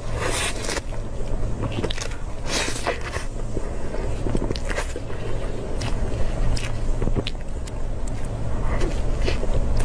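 Eating up close: bites and chewing of a soft cream puff and mille crêpe cake. Short clicks and smacks come scattered over a steady low hum, with a couple of longer crunchy-sounding bites about half a second and two and a half seconds in.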